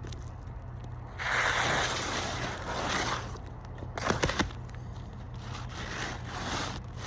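Scraping and rubbing on 3-tab asphalt shingles as a roof snake tool is worked under them, a hissing scrape lasting about two seconds, then a quick cluster of sharp clicks about four seconds in.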